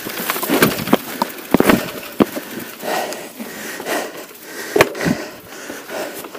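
Mountain bike climbing a rocky dirt trail: the tyres crunch over loose stones and the bike rattles and clacks with irregular sharp knocks as it hits rocks.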